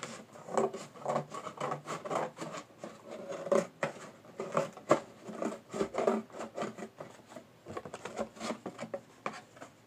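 Scissors cutting through a cardboard shoebox lid: a run of irregular crunching snips with rubbing of the cardboard, thinning out near the end.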